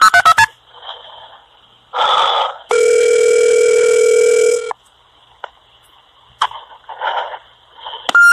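A telephone call connecting: rapid keypad dialing beeps stop about half a second in. A short burst of line noise follows, then a steady ringing tone lasting about two seconds, then faint line hiss with a few clicks.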